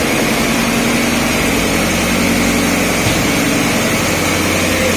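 Diesel machinery running steadily in a ship's steel engine room: a loud, constant engine drone with a steady hum, no change in speed.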